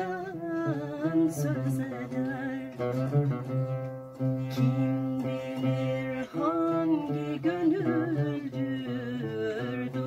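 An oud plucked as accompaniment to a woman's voice singing a slow, bending melody.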